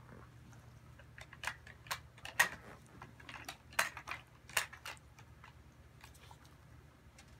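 A round plastic dog treat-puzzle toy clicking and clattering as a dog noses at its pieces: a run of sharp, irregular clicks, loudest about two and a half seconds in, with a few fainter ones near the end.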